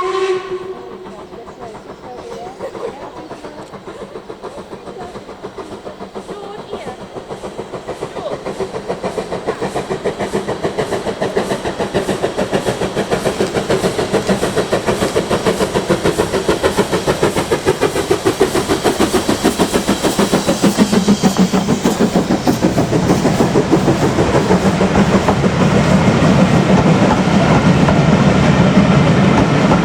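Steam locomotive working, its exhaust beating in a fast, even rhythm that grows steadily louder. A short sharp sound with a brief tone comes right at the start.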